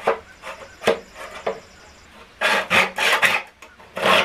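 Hand back saw cutting PVC pipe in a plastic miter box: a few separate strokes, then quick, steady back-and-forth sawing from about halfway.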